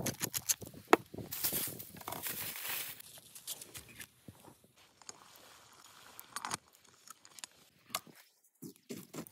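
Aluminium foil crinkling and rustling as potatoes are wrapped in it, a dense run of sharp crackles over the first few seconds. After that come fainter, scattered clicks and short scrapes.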